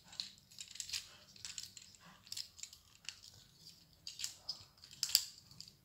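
Plastic parts of a Transformers Siege Springer action figure clicking and rubbing as they are turned and snapped into place by hand: scattered soft clicks and rustles, the loudest a little after four and five seconds in.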